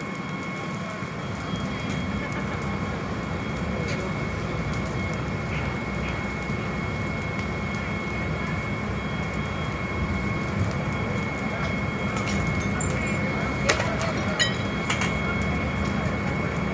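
A steady low rumble with a constant high-pitched whine over it, growing slightly louder, with a few faint clicks in the second half.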